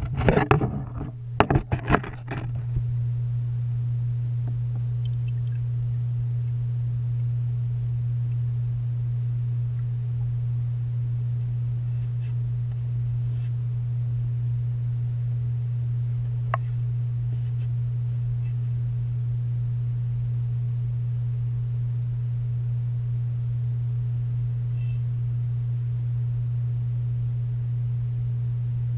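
Steady low hum of a submersible tank pump heard underwater, with water splashing in the first couple of seconds and a single faint click about halfway through.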